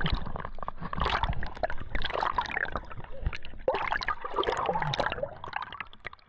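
Water sloshing and gurgling close to the camera, with irregular splashy bubbling; it drops off suddenly near the end.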